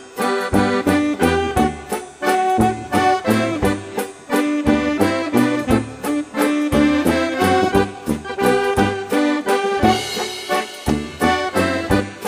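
Old-time polka band playing a waltz, with accordion carrying the melody over tuba bass notes and a steady beat.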